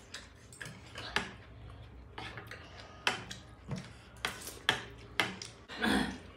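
Metal spoons and forks clinking and scraping against ceramic plates as several people eat noodles: scattered sharp clicks, one or two a second. A longer, louder sound near the end.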